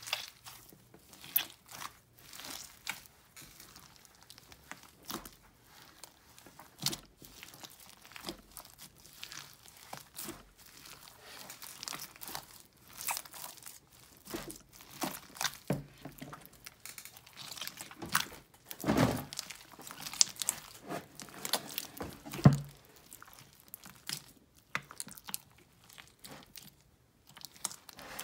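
Hands kneading and squeezing a large mass of mixed slimes, including foam-bead and sprinkle slime: irregular wet crackling, crunching and squishing. A few louder squishes come about two-thirds of the way through.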